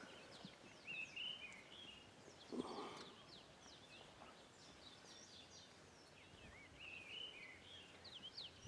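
Faint chorus of birds calling in the bush: repeated short chirps and whistles throughout. A brief dull low sound comes about two and a half seconds in.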